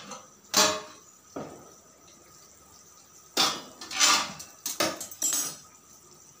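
Metal lid lifted off a kadai with pan-gripping tongs and set down, a string of sharp metal clanks: one about half a second in, another near a second and a half, then several close together in the second half.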